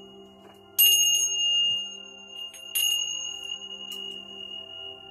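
Tibetan chimes struck twice, about a second in and again near three seconds, each strike ringing on with a long, steady high tone. A low steady drone sounds underneath.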